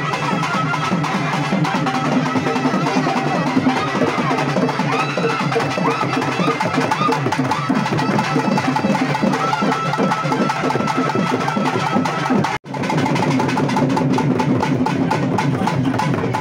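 Naiyandi melam folk band playing: fast, dense drumming under a reed pipe holding a droning melody. The sound cuts out for an instant about twelve and a half seconds in.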